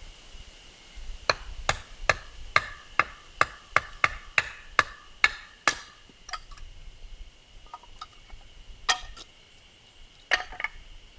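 Firewood being split by hand: a quick run of about a dozen sharp wooden knocks, two to three a second, then a few scattered strikes, over a steady high insect drone.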